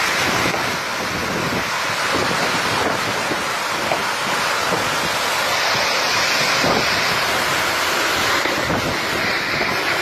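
Steady noise of a violent windstorm with heavy driving rain, with gusts buffeting the microphone.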